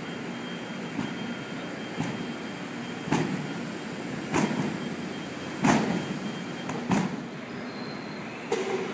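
A series of separate thumps, roughly one every second or so and some louder than others, over a steady background hum.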